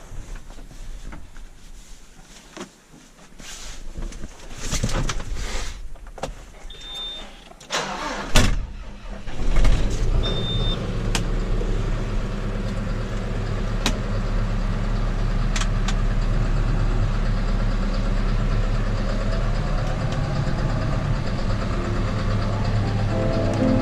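Handling clicks and two short high beeps, a loud clunk about eight seconds in, then a tractor's engine starts and idles steadily.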